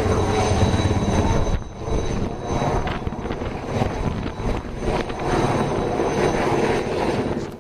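Helicopter hovering overhead on a longline sling-load delivery, its rotor running steadily with a close, pulsing beat.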